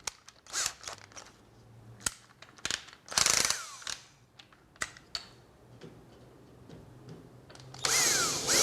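Clicking and ratcheting of a power drill's chuck as the Forstner bit is taken out and a steel twist bit is fitted. Near the end the drill starts up and runs with a steady whine.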